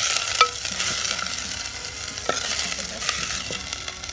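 Onion, mint, coriander and whole garlic frying in hot oil, a steady sizzle, while being stirred, with a spoon knocking against the pot a few times.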